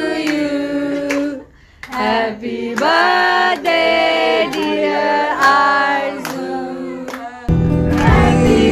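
Singing, with sharp clap-like beats about twice a second, after a short pause about one and a half seconds in. Fuller music with deep bass comes back in near the end.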